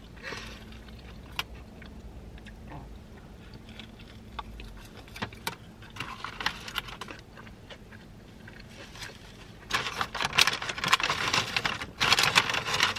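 Crinkling of a foil burrito wrapper and soft eating sounds, then a louder run of rustling as tortilla chips are rummaged in a paper bag over the last few seconds.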